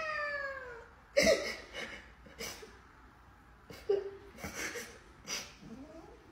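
A woman fake-crying: a drawn-out whimper falling in pitch, then a string of short sobbing gasps and sniffles.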